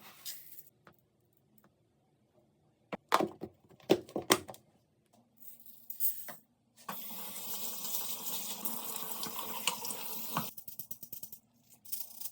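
Several short knocks and clatters, then a tap running into a container for about three and a half seconds before it is shut off suddenly.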